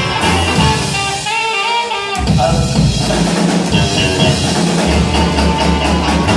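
Live band playing: electric guitar, upright double bass and drum kit. About a second in, the bass and drums drop out for roughly a second while the higher parts carry on, then the full band comes back in.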